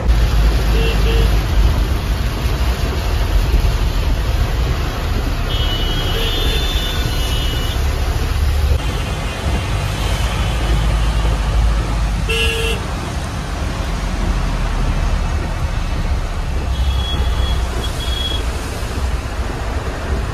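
Steady road and engine rumble inside a moving vehicle in traffic, with short horn toots from surrounding traffic several times: about a second in, around six to eight seconds, around twelve seconds and again near seventeen seconds.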